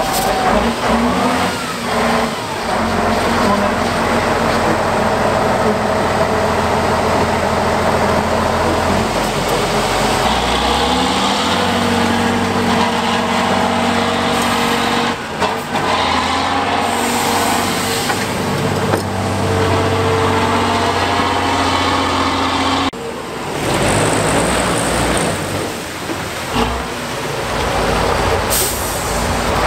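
Heavy off-road trial trucks' diesel engines revving and labouring, rising and falling in pitch as they crawl over steep mud. The sound changes abruptly twice, about halfway and two-thirds of the way through, as it switches from one truck to another.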